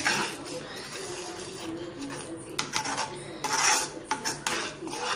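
Wooden spatula scraping and stirring thick curry gravy in a pan as cashew paste is mixed in, in irregular strokes. The loudest scrapes come about three and a half seconds in.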